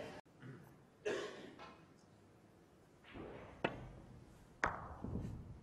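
Snooker cue and balls clicking on a shot: two sharp clicks about a second apart, the second the louder and ringing briefly.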